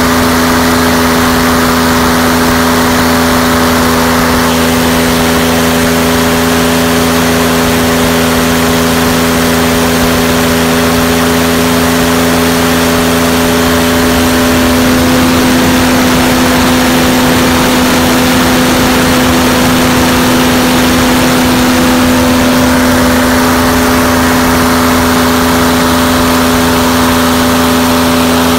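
V-6 aircraft-conversion engine running at full power and turning a propeller: a loud, steady drone, its tone shifting slightly about halfway through.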